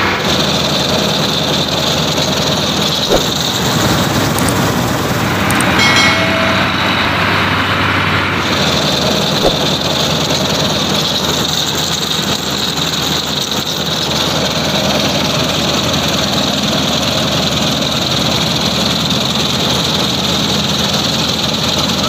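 New Holland combine harvester running while harvesting rice: engine and threshing machinery with belt-driven pulleys making a steady, loud mechanical din, with a couple of short knocks.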